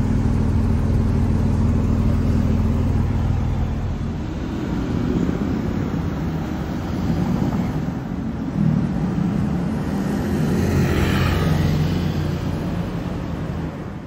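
Car engines and street traffic. A steady engine note holds for the first four seconds, then gives way to general traffic noise, and another engine comes up about eight and a half seconds in.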